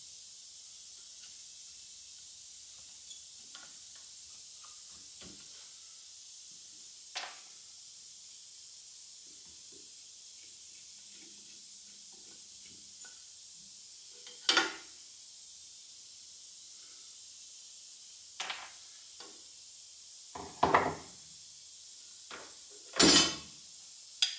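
Metal parts of an old cast-iron garage jack clinking and clanking as they are handled on a workbench. Soft scattered clicks come first, then a handful of sharp, louder clanks in the second half, over a steady faint hiss.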